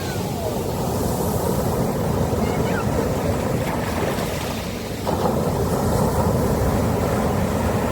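Sea waves breaking and washing on a sandy beach, a steady rushing noise that shifts abruptly about five seconds in.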